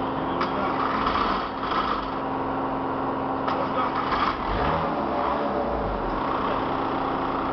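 Street traffic noise: engines running under a steady hum, with a deeper engine rumble that swells about halfway through and stops near the end.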